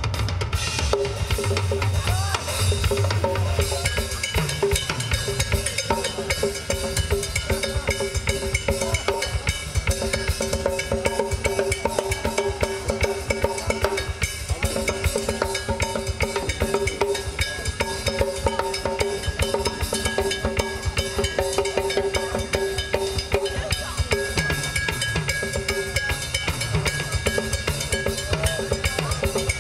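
Drum kit played solo: fast, unbroken strokes across snare, toms and bass drum, with cymbals. The bass drum comes in heavier in the first few seconds and again near the end.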